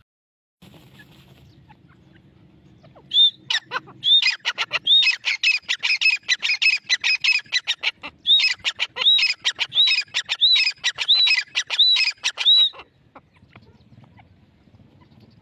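Grey francolin calling: a fast run of sharp, repeated notes with ringing arched whistles at about two a second, starting about three seconds in and stopping abruptly near the end.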